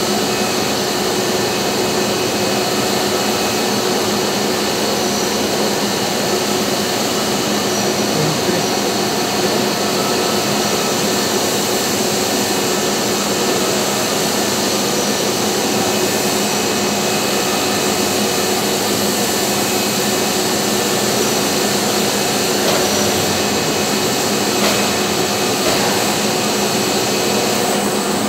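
Steady machine-shop machinery noise: a continuous whir with a low hum that holds level the whole time.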